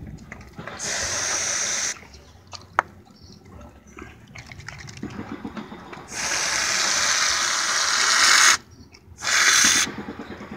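Aerosol whipped-cream can spraying in hissing bursts: a short burst about a second in, a long one of about two and a half seconds from about six seconds in, and a short one near the end. Between the bursts a dog licks and eats wet, soft food, with one sharp click near three seconds in.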